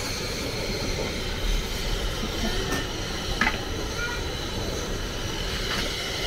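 Rain falling steadily: an even hiss of noise with a few faint ticks.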